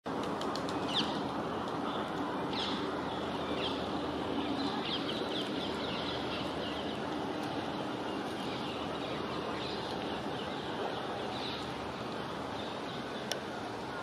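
Steady background hum of distant city traffic, with small birds giving scattered short chirps and calls over it, most of them bunched together a few seconds in. One sharp click near the end.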